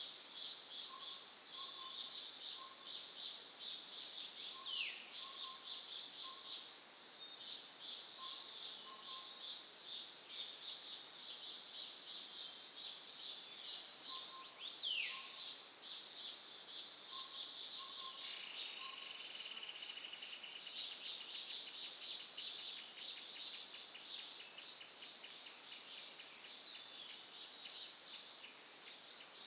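Daytime forest chorus of insects buzzing and pulsing, with a bird giving a single falling whistle about 5 s in and again about 15 s in, and faint short repeated notes underneath. About 18 s in a second, louder insect trill starts up and carries on to the end.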